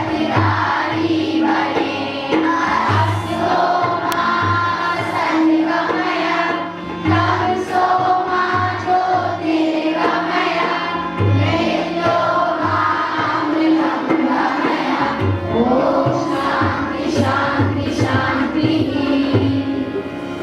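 A choir singing a song with instrumental accompaniment, a held tone under the voices and a repeated low drum beat.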